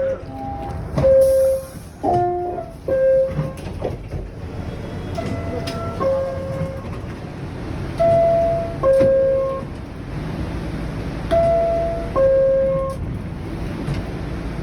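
New York City subway car door chimes sounding several times: each a higher note dropping to a longer, lower note, the signal that the doors are about to close, over the steady rumble of the train.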